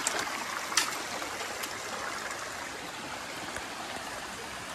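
Jungle stream running over its bed, a steady rush of water, with two short sharp sounds near the start, the louder one about a second in.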